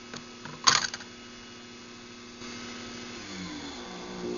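Craftsman garage door opener clicking a few times, one click loud, over a steady electric hum that grows louder in the second half.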